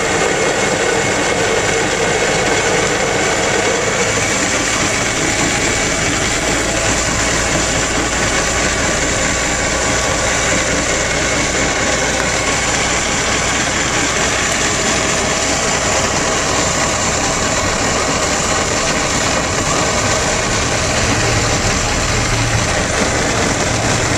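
Steady road noise of a ride-on toy car being towed along a road at speed: its wheels rumbling on the asphalt, with engine noise under it. The deep rumble grows stronger about four seconds in.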